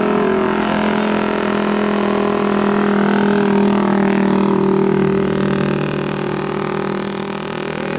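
A vehicle's loud, steady drone holding one low pitch, easing off slightly near the end.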